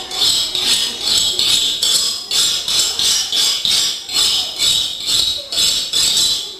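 A knife being sharpened: a loud, rhythmic run of high, raspy metal scraping strokes, about three a second.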